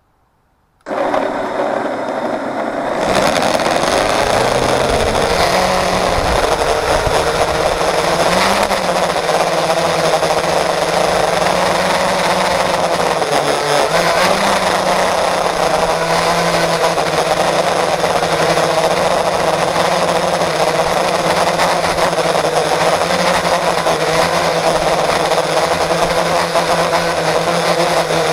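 FPV quadcopter's electric motors and propellers starting to spin about a second in, then getting louder at about three seconds as the quad takes off. They run on as a steady whine with small wavers in pitch, heard up close through an action camera mounted on the quad.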